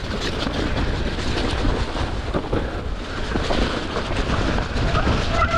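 Enduro mountain bike descending a wet, slippery dirt trail: a steady low rumble of tyres over mud and roots with the frame and chain rattling. Near the end a steady high squeal sets in, the sound of wet disc brakes being dragged on the descent.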